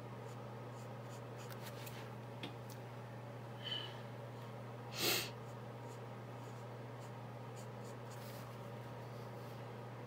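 Sanjoki alcohol marker stroking over colouring-book paper in soft, faint rubs, over a steady low hum. A short, sharp sniff about five seconds in is the loudest sound.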